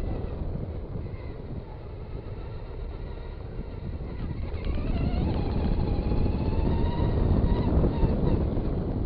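Traxxas Stampede 2WD RC truck running, its electric motor whine rising in pitch about halfway through as it speeds up, over a steady rumble of wheel and wind noise.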